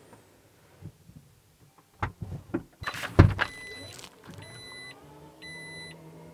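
Power liftgate of a Jeep Grand Cherokee unlatching with a cluster of clunks about two seconds in, the loudest about three seconds in, then three short warning beeps as its motor starts a steady hum raising the gate.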